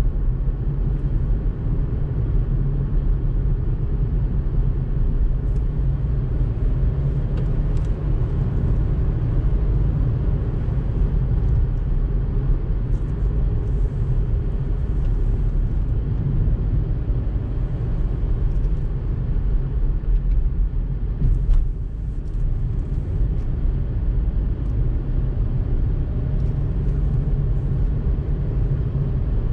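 Steady low rumble of a car's engine and tyres on the road, heard from inside the cabin while driving, with faint light ticks now and then.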